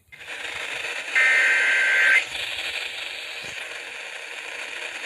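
Weather radio receiver hissing with static, cut through about a second in by a one-second Emergency Alert System (SAME) digital header burst, the two-tone data signal that opens a new alert, here a severe thunderstorm warning.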